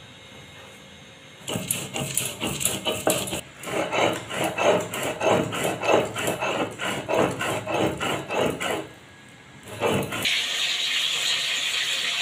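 Poppy seeds being ground on a stone grinding slab: a stone roller rasping back and forth over the seeds at about two strokes a second. The strokes start about a second and a half in and stop after about nine seconds. Near the end, a steady sizzle of small hilsa pieces frying in a wok.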